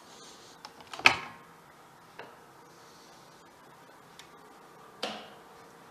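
Door latch clicking sharply about a second in as the door handle is pressed and the door swung open, with a few lighter clicks after it and a thump near the end. A faint steady hum runs underneath.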